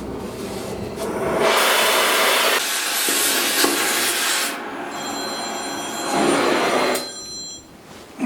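Oxy-acetylene cutting torch hissing as it works on the steel hull plate, the hiss swelling loud after about a second and easing off about halfway through. A steady high ringing tone follows for a couple of seconds, under a second, shorter burst of hiss.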